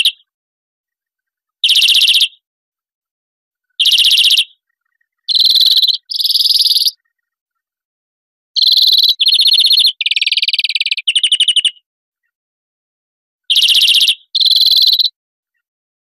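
European greenfinch song: about ten short, rapid trilled phrases, each under a second, separated by clean gaps of silence. Most phrases are high; a few near the middle drop slightly lower.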